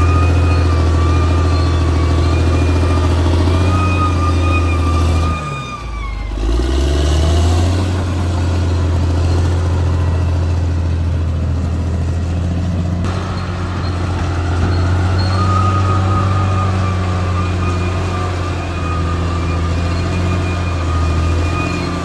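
Caterpillar D6R XL bulldozer's diesel engine running under load, with a steady high whine over the engine note. About six seconds in the engine speed sags briefly and then picks back up.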